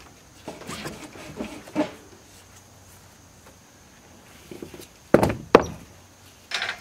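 Ratchet tie-down strap being worked and locked down: a few scattered metal clicks, then two loud clacks about half a second apart.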